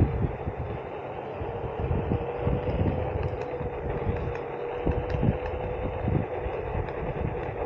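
Onewheel GT's hub motor humming with one steady tone while riding at an even speed, over a gusty low rumble of wind on the microphone.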